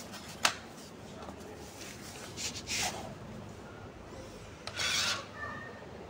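Gesture-controlled stunt RC car making short rasping bursts as its wheels briefly spin and scrub on the floor, twice, after a single click about half a second in.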